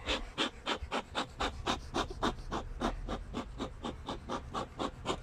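Beekeeper's bellows smoker being pumped in quick, even puffs, about four a second, blowing smoke over the open hive frames to calm the bees.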